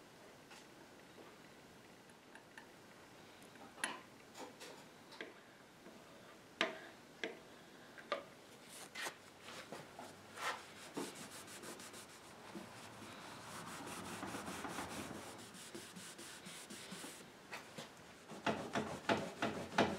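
Hand tools scraping and rubbing on a wooden tabletop as nail holes are filled with melted burn-in stick: faint scattered taps and scrapes, then a stretch of rubbing and a run of quick strokes near the end.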